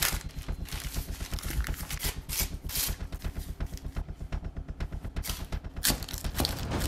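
Fast-paced music with rapid, dense drum hits over a steady bass.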